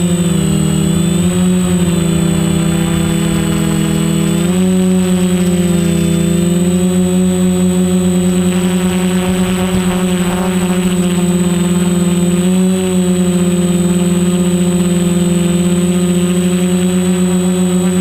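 Quadcopter electric motors and propellers whining steadily, their pitch shifting a little as the throttle changes, about a quarter of the way in and again past two-thirds, with a thin high-pitched whine above.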